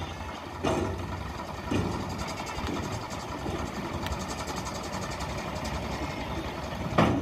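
Tractor diesel engine running steadily at idle while the hydraulic tipping trailer is lowered after unloading sand, with a few short sharp sounds in the first two seconds and a sudden loud one near the end.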